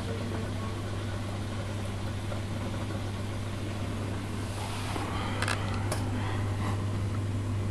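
Steady low hum of an aquarium pump running, with an even hiss of moving water and two faint sharp clicks about five and a half seconds in.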